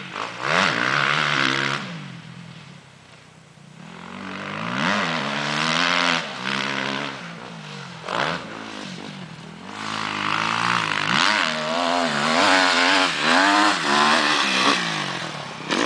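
Husqvarna TXC 250 dirt bike's single-cylinder engine revving up and down as it is ridden round a motocross track, its pitch rising and falling again and again with the throttle and gear changes. It fades to faint about three seconds in, then grows loud again and is loudest near the end as the bike comes close.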